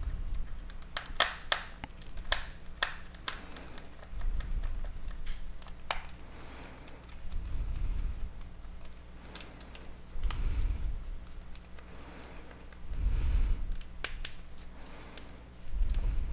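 Small screwdriver clicking and tapping on a smartphone's plastic back housing as its tiny screws are taken out: a run of sharp clicks in the first few seconds, then quieter handling with soft low thuds about every three seconds.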